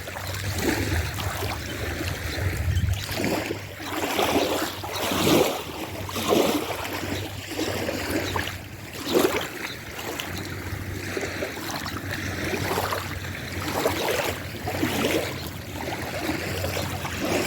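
Small waves lapping on a rocky lakeshore, swelling and easing every second or two.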